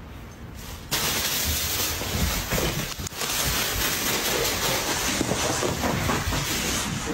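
Plastic shopping bag crinkling and rustling loudly and continuously as a cat tangles with it, starting abruptly about a second in.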